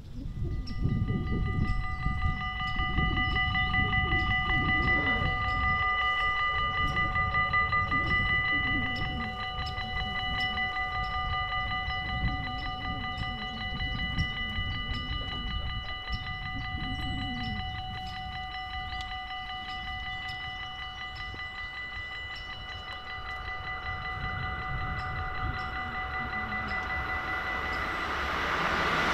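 Level-crossing warning bells ringing rapidly and without a break while the crossing lights flash and the barriers lower to warn of an approaching train. Near the end a train begins to rise in loudness as it arrives.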